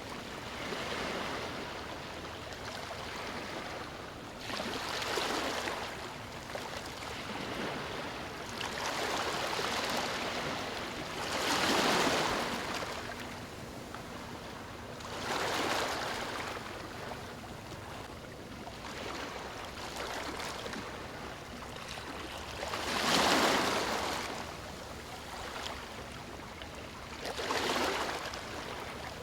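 Ocean waves breaking and washing up a beach, each wash swelling and fading every few seconds, with two larger waves about twelve and twenty-three seconds in.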